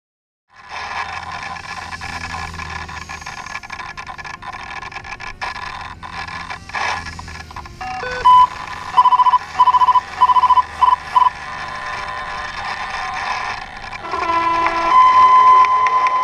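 Electric RC helicopter's motor and speed controller giving a series of loud, evenly pitched beeps as the system arms, over steady background noise with a few knocks. Near the end a steady high tone begins as the motor starts to turn the rotor.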